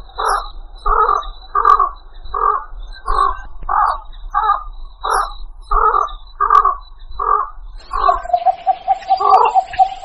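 Blekok (heron) lure call: short harsh croaking calls repeated evenly, about every 0.7 s. From about 8 s in they give way to a steady rapid rattling trill.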